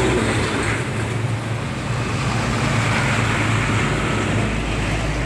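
Road traffic on a busy highway: a steady low engine hum with the rushing noise of vehicles going by.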